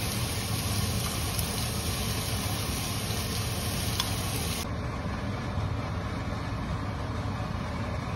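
A steady low machine hum with an even hiss over it. The higher part of the hiss drops away abruptly about halfway through.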